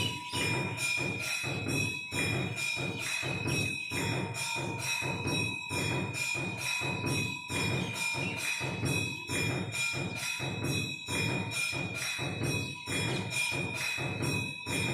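Temple bells ringing continuously: an even, rapid run of strikes, several a second, over steady ringing tones.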